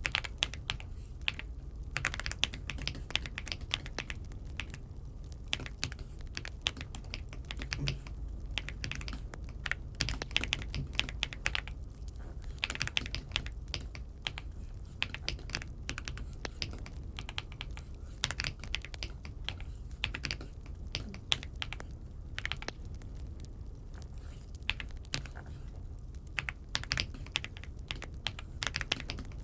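Typing on an Aula F75 mechanical keyboard: a continuous, irregular run of key clicks over a steady low hum.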